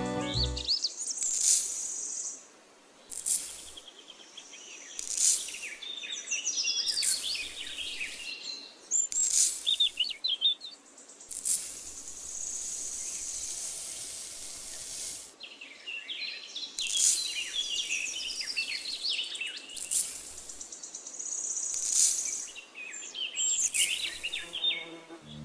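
Small birds chirping and twittering over a faint hiss, cut by short rushes of noise about every two seconds. A longer, steady hiss of dry sand pouring from a small cup runs from about twelve to fifteen seconds in.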